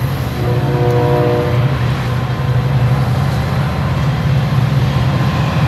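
Metra commuter train running on the tracks close by: a loud, steady low rumble, with faint steady tones over it in the first second or so.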